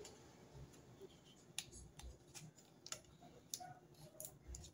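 Faint scattered clicks, about half a dozen in the last three seconds, from a hot glue gun being worked over cardboard pieces, over quiet room hiss.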